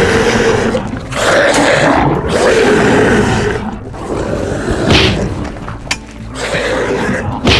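Giant-monster roar sound effects: several long roars one after another, with a quieter stretch and a short heavy hit about five seconds in, over music.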